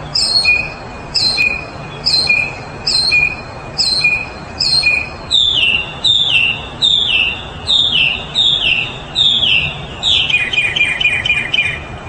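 Mockingbird singing in repeated phrases. It repeats one short two-note phrase about eight times, then switches to a falling slurred phrase repeated several times, and near the end gives a quick run of short falling notes.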